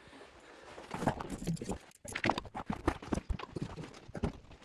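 Footsteps on a hard floor, with irregular knocks and rustles from a handheld phone being carried; the sound drops out briefly about two seconds in.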